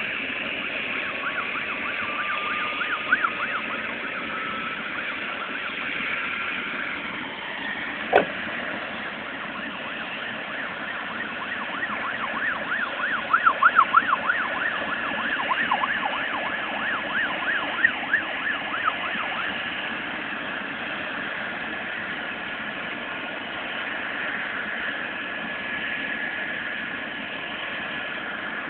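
Air ambulance helicopter running on the ground before take-off: its turbine whine rises slowly over the first several seconds and then holds steady under the rotor noise. A single sharp knock sounds about eight seconds in.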